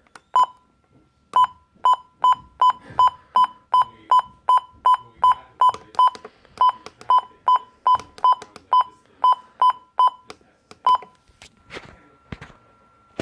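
Weather alert radio's button beeps as its clock is being set: about two dozen short, identical high beeps, roughly three a second, stopping about eleven seconds in. A faint thin steady tone runs underneath.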